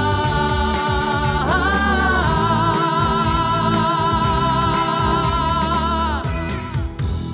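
Closing bars of a Ukrainian folk-pop band song: long held chords, with a pitch lift about a second and a half in, breaking off about six seconds in before a short final accent.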